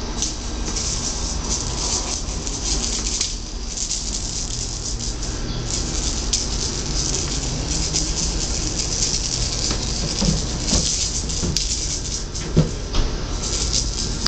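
Steady hiss with a low hum underneath, and a few light knocks about ten to thirteen seconds in.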